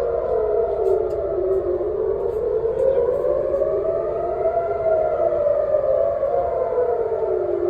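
City civil-defense siren wailing, its pitch sliding down, then up, then down again in a slow rise and fall of about six seconds: the warning of a possible missile strike.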